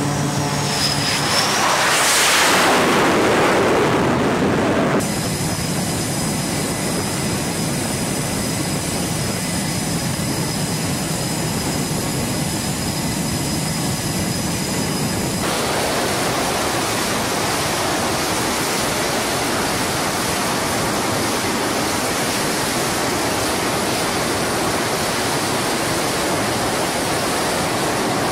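Military jet aircraft engines on a carrier flight deck. A loud rush swells and fades in the first few seconds as an aircraft goes by, then jet engines run with steady high whistling tones, and from about a third of the way in there is an even, steady roar. The sound changes abruptly at each step.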